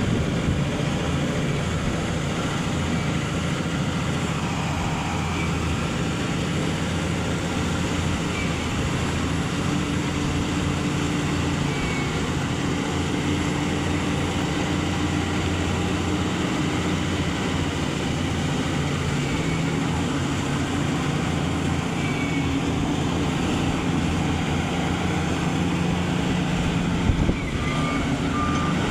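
Bulldozer's diesel engine running steadily, with a brief knock near the end.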